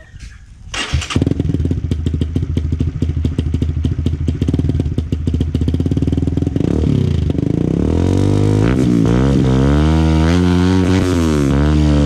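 Honda RS150/RSX motorcycle's bored-up single-cylinder four-stroke engine, running through a Cardinal Racing 32 mm exhaust with its silencer insert removed. It starts about a second in and idles with a rapid popping beat, then from about halfway is revved up and let fall back several times.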